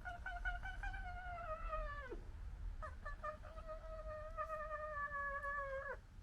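Red fox giving two long, wailing calls in a squabble. The first lasts about two seconds and ends in a downward slide. The second starts after a short pause, holds a steady pitch for about three seconds and cuts off sharply.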